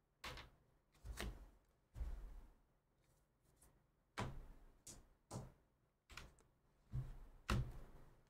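Objects being handled and set down on a desk: a string of about nine soft knocks and thuds, irregularly spaced, some followed by a brief rustle.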